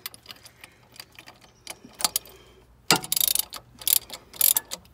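Socket ratchet wrench clicking in quick runs of strokes as a bolt is threaded in, starting about three seconds in. Before that, scattered light clicks and knocks of tools being handled.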